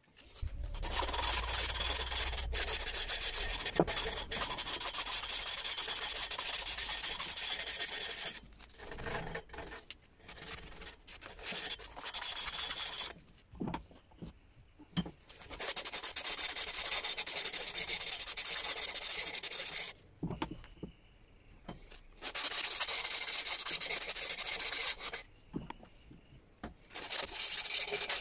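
Sandpaper scraping over a wooden sickle handle held in a vise, smoothing the wood. It runs in long stretches of several seconds with short pauses between them.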